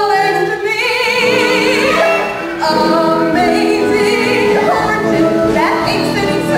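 Musical theatre number performed on stage: singing, with a held note sung with wide vibrato about a second in, over instrumental accompaniment.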